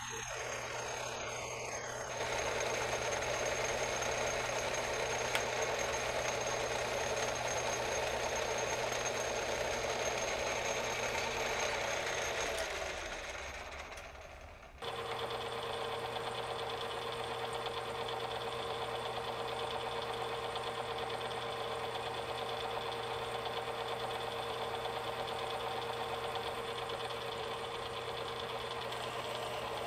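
Metal lathe running steadily as it turns a brass bar. The sound dies away about thirteen seconds in, then cuts back in, and the lathe runs on while a center drill in the tailstock chuck is fed into the end of the bar.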